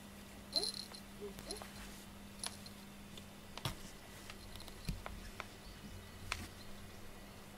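Small bell on a cat's collar tinkling faintly a few times in the first two seconds, then scattered soft clicks and rustles as the cat shifts on its cushion, over a steady low hum.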